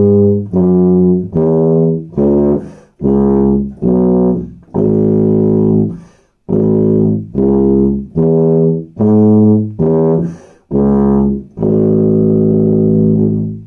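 Four-valve B-flat tuba playing the A major scale and its arpeggio, one separately tongued note at a time. A longer note comes about five seconds in, and the run ends on a long held note near the end.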